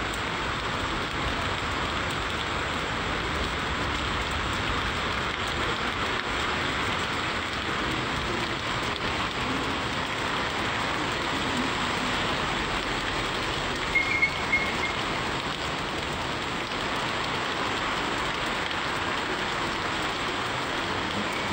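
Heavy rain pouring steadily onto a street and shop awnings, a dense even hiss. About two-thirds of the way through, a brief high-pitched squeak rises slightly above the rain.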